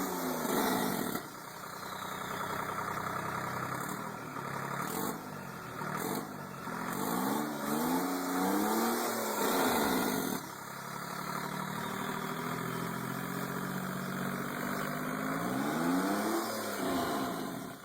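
Detroit Diesel 3-53T three-cylinder turbocharged two-stroke diesel running and being revved up and dropped back to idle several times, its pitch rising and falling.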